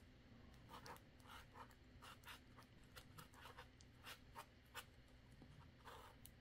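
Sharpie fine-point marker writing on a foam packing insert: faint, short strokes at about two or three a second, unevenly spaced.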